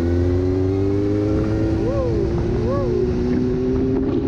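Motorcycle engine running under way, its pitch rising steadily as it accelerates. Two short rising-and-falling whistles about a second apart near the middle.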